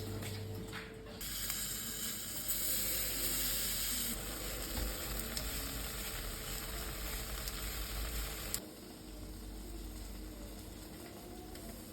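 Food sizzling as it fries in a hot pan. The sizzle starts about a second in, is loudest over the next few seconds, and cuts off abruptly about three-quarters of the way through.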